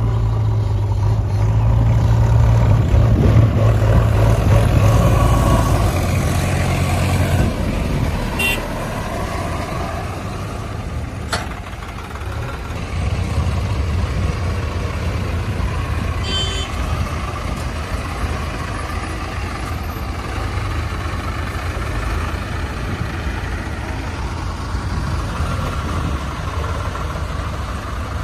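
Diesel engines of a JCB 3DX backhoe loader and farm tractors running while soil is loaded. The engines run loudest for the first seven seconds or so, then settle to a steady lower drone. Two sharp knocks come a few seconds apart near the first third.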